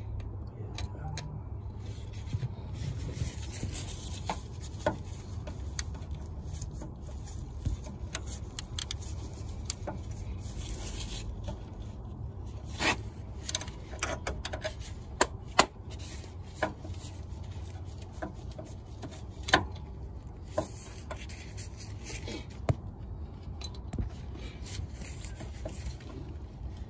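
Socket ratchet on a long extension working a bolt in the engine bay: the ratchet rasps and clicks as the handle swings back, with a few sharp metal clinks in the second half.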